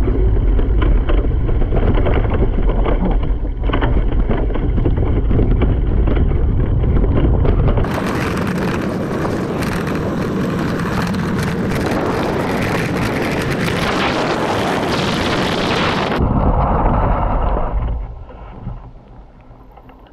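Wind buffeting the microphone of an action camera on a descending mountain bike, over the rattle of tyres and bike on a dirt and gravel trail. About eight seconds in the sound turns abruptly to a brighter, fuller rush, and it falls much quieter near the end.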